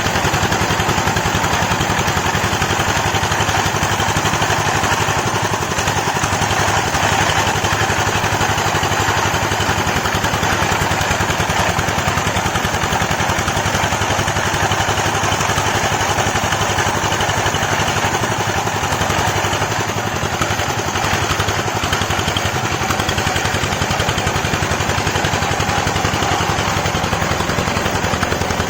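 Rice milling machine (rice huller) running steadily: an even, fast engine beat under a dense whirring clatter that holds the same level throughout.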